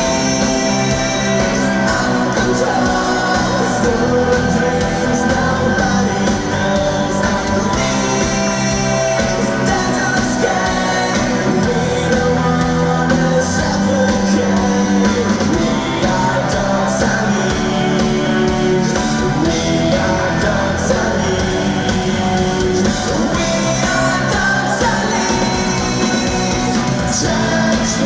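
A rock band playing a song live at concert volume, with a male lead singer singing over it.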